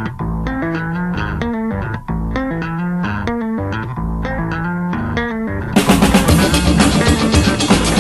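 Instrumental band music: a picked guitar and bass line plays separate notes, then near the end the full band with drums comes in, much louder.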